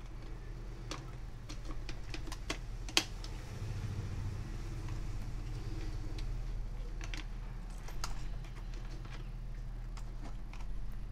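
Scattered plastic clicks and taps as a RAM stick is pushed into a desktop motherboard's memory slot and a cable is plugged into the board's back-panel port. The sharpest click comes about three seconds in. A low steady hum runs underneath.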